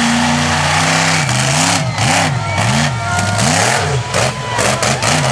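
Monster truck engine running loud, first held steady, then revved up and down over and over, about twice a second, while the truck is driven hard on the dirt.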